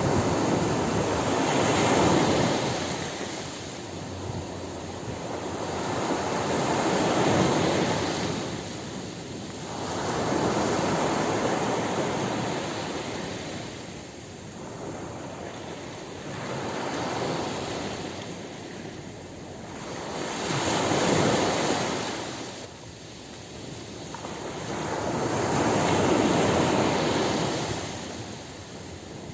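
Ocean surf breaking on a beach. The rush of the waves swells and fades about every four to five seconds, six times over.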